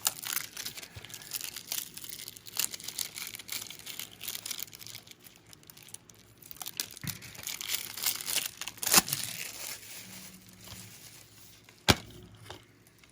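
Plastic shrink-wrap being torn and peeled off a DVD case, an irregular crinkling and ripping that dies down toward the end, then a single sharp click.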